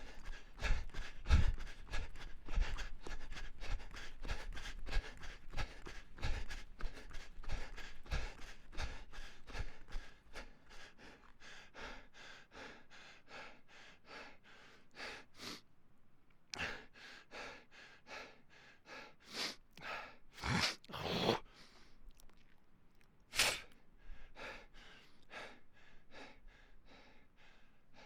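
A person running, with footfalls and panting breaths in a steady rhythm of about three a second. About ten seconds in the footfalls stop and the runner breathes hard, in fewer and slower breaths with a few loud gasps.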